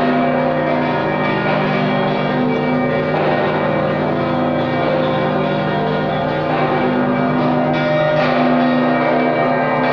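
Church bells ringing together: several bells of different pitch struck again and again, their tones overlapping and ringing on without a break.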